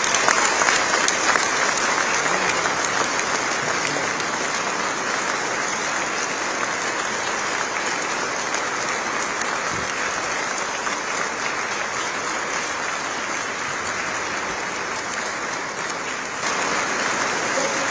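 Audience applauding, a dense, steady clapping that gets slightly louder near the end.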